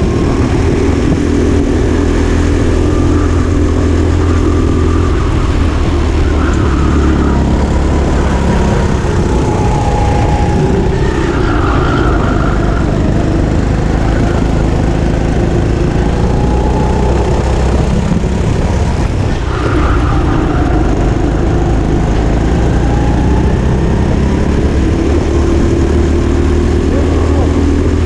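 Go-kart engine running hard, heard from onboard, its pitch rising and falling over and over as the kart accelerates and slows through the corners.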